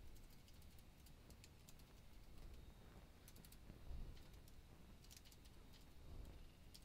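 Faint, irregular clicking of a computer keyboard, the keystrokes coming in small scattered clusters over a low room hum.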